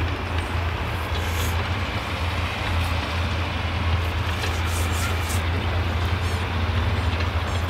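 Farm tractor engine idling steadily.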